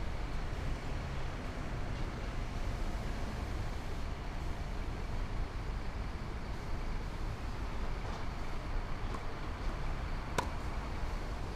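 Steady low outdoor rumble, with one sharp crack of a tennis ball struck by a racquet about ten seconds in and a few much fainter ball hits earlier.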